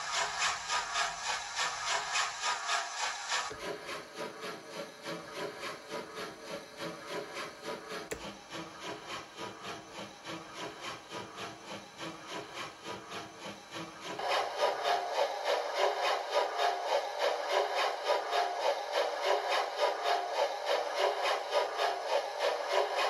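Steam locomotive exhaust chuffs from a LokSound 5 DCC sound decoder with a Merchant Navy sound file, played through small model-railway speakers. The chuffs come in an even rhythm of about three beats a second. About 3.5 s in the tone turns thinner and quieter, and about 14 s in it turns louder and brighter, as playback switches to a different speaker.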